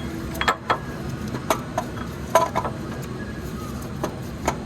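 Scattered sharp metal clicks and knocks of parts and tools being handled and wiggled in a car's engine bay, the loudest about two and a half seconds in.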